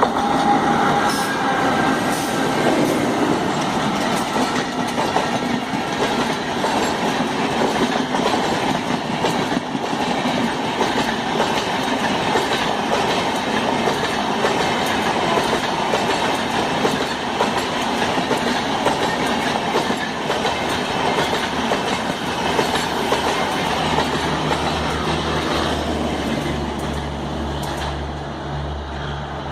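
Passenger train coaches rolling past at speed, wheels clattering over the rail joints in a steady clickety-clack. A low steady hum comes in near the end.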